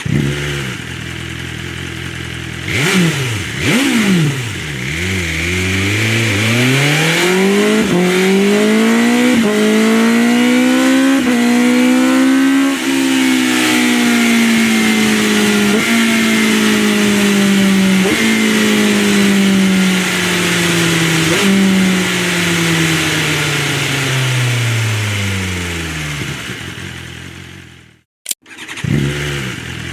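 BMW M-series motorcycle's inline-four engine and performance exhaust: it idles, is blipped twice, then its note climbs steadily for several seconds with brief stutters. The pitch peaks and falls away slowly until it fades out. Near the end a cut brings back an idle.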